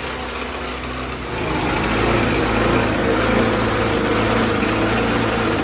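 Briggs & Stratton small engine on a Bolens walk-behind mower running steadily, getting louder about a second and a half in. The mower is up and running again after repair.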